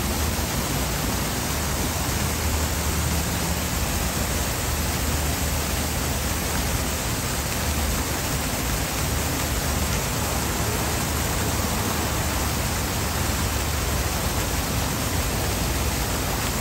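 Plaza fountain's rings of vertical water jets splashing down into a shallow pool: a steady, unbroken rush of falling water.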